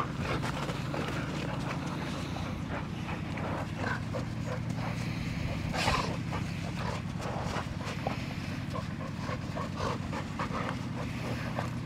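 A Labrador retriever and golden retrievers play-fighting in a tug-of-war over a toy, making short irregular dog vocal sounds, with one louder, sharp cry about six seconds in.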